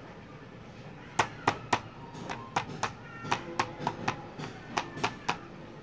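A knife strikes repeatedly on a metal ring cutter from about a second in, about three sharp taps a second. It is driving the cutter through a firm raw potato slice on a plastic cutting board, since hand pressure alone won't push it through.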